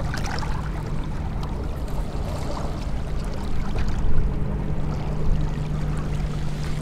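Steady low hum over a low rumbling background, with a few faint light clicks.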